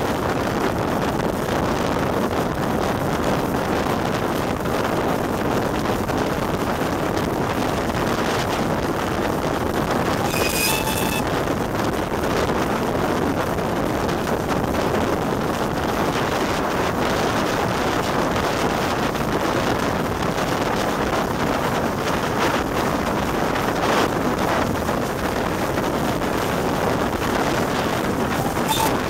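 Wind rushing over the microphone, with the steady running noise of a steam-hauled train at speed, heard from beside the locomotive. A brief high-pitched tone sounds about ten seconds in.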